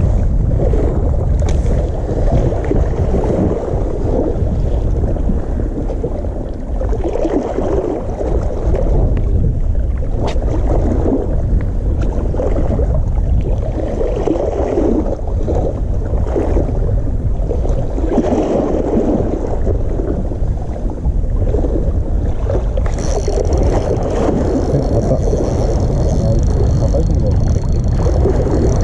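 Sea water washing against a rocky shore in swells that rise and fall every second or two, over a steady low wind rumble on the microphone. Near the end a thin steady high whine comes in on top.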